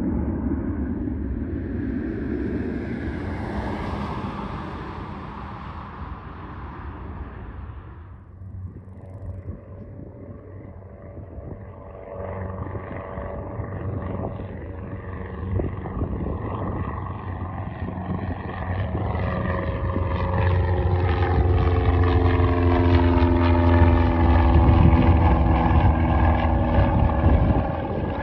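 Single-engine propeller plane (high-wing light aircraft) climbing out after takeoff and passing overhead. Its engine and propeller buzz grows louder, then drops in pitch as it goes by. For the first several seconds a more distant departing aircraft is heard as a noisy rumble that swells and fades before a cut.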